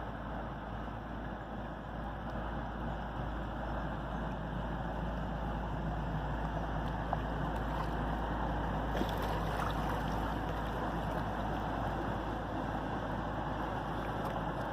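Inland cargo barge's diesel engine running steadily as the vessel passes, a low hum that grows a little louder, mixed with wind rumble on the microphone.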